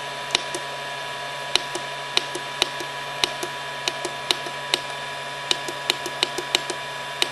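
Quick, uneven clicking of the FlashForge Creator 3D printer's control-panel buttons pressed over and over to scroll down its menu, over the printer's steady hum.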